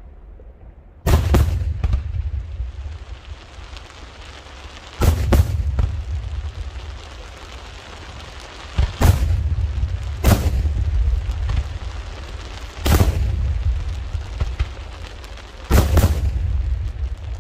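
Daytime aerial firework shells bursting overhead: about six loud bangs a few seconds apart, each trailing off in a low rumbling echo.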